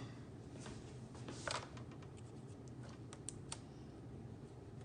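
Scissors snipping and scraping at a plastic package, with a few sharp clicks about three seconds in.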